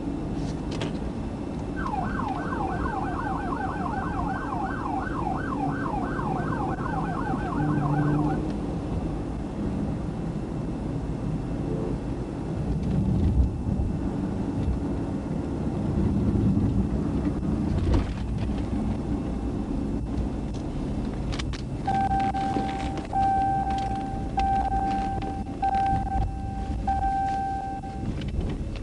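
Police cruiser siren in a fast yelp for about six seconds, over the cruiser's steady road and engine noise as it slows from highway speed. Near the end come five or six short blasts of one steady tone, about one a second.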